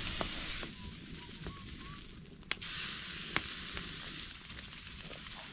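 Butterflied, still-frozen steak sizzling on a hot grill grate over a wood fire, a steady hiss broken by a few sharp pops. The hiss swells again after a pop about two and a half seconds in.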